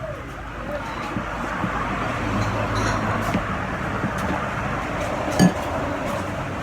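Steady road traffic passing, with an engine hum that swells for a moment. One sharp clink about five seconds in.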